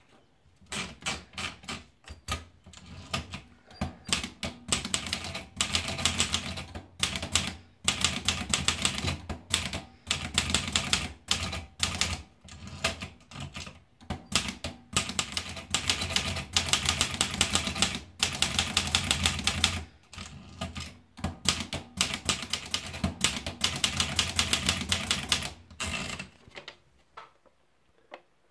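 Olivetti Lettera 32 portable manual typewriter being typed on: fast runs of key strikes in bursts separated by short pauses, tapering off to a few single strokes near the end.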